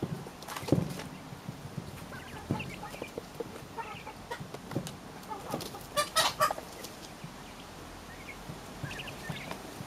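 Coturnix quail pecking at a hanging piece of cucumber: scattered sharp pecking taps and small, short chirping calls, with a louder short burst about six seconds in.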